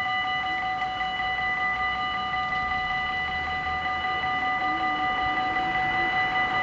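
Level-crossing warning bells ringing in a rapid, steady stream of strikes while the crossing is closed for an approaching train.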